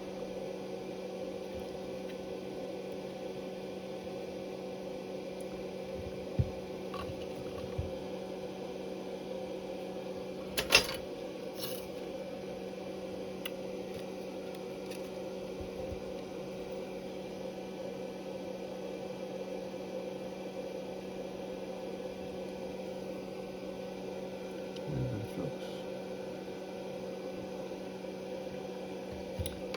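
A steady electrical hum with a few light handling clicks; one sharp click about eleven seconds in and a soft low thump near the end.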